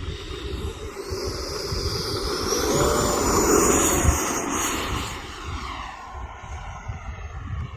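Electric ducted-fan jet, an E-flite Viper 90mm, taking off: a high whine that rises in pitch over the first few seconds and then holds. It is loudest around the middle and then fades as the plane pulls away. Wind buffets the microphone with a low gusty rumble throughout.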